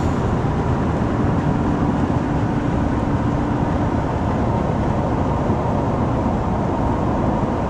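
Steady road noise inside a pickup truck's cab at highway speed: the tyres, wind and engine running.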